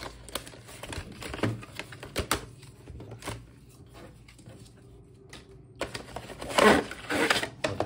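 Cardboard packaging being torn open and handled: scattered crackles, taps and rustles, with a louder stretch of tearing near the end.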